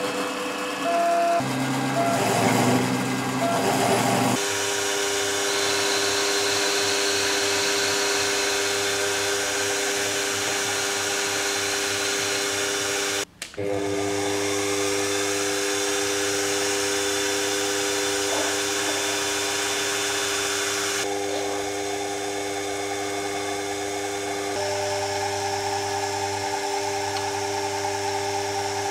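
Small benchtop machine tools running with a steady motor whine: a CNC milling spindle cutting brass, then a small lathe spinning while a drill bit bores into a brass part. The sound is rougher and uneven for the first few seconds, cuts out briefly about 13 seconds in, and changes in pitch and mix twice near the end.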